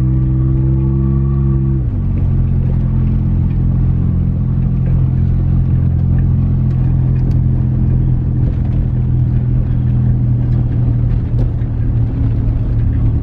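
2019 Toyota Highlander's V6 engine with a cut exhaust, heard from inside the cabin while driving: the drone holds at a higher pitch, drops sharply about two seconds in, then runs steady and low. A few faint ticks sound over it.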